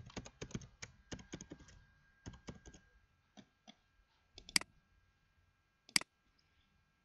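Computer keyboard typing: a quick run of keystrokes for about three seconds as a password is entered, then a few scattered taps and two louder, sharper clicks of a mouse button.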